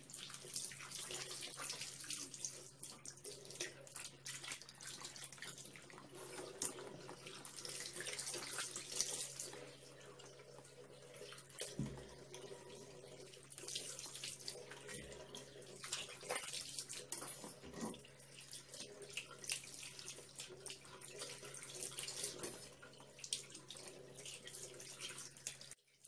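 Tap water running into a ceramic washbasin, the stream splashing unevenly over hands rubbing and rinsing beneath it.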